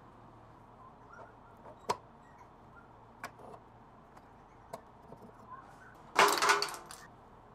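Small workshop handling sounds from tricycle wheel parts: a few light, sharp clicks and knocks spread out, then a louder clatter lasting under a second about six seconds in.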